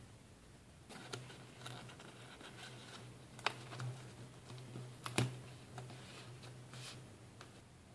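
Sheet of paper being handled and folded by hand over a wire held in alligator clips: soft crinkling and rustling with a few sharp clicks, the loudest about halfway through.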